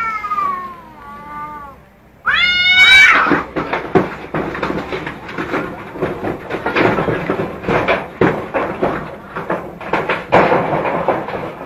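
Two cats fighting. It opens with a long yowl that falls in pitch, and about two seconds in a sharp rising screech breaks out. Then comes a rapid, noisy scuffle of screeches and scrabbling as they grapple.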